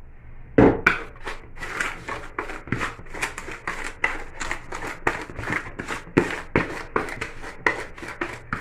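Margarine and sugar being creamed by hand in a bowl: a mixing utensil scraping the bowl in quick repeated strokes, about two to three a second, with a louder knock about half a second in.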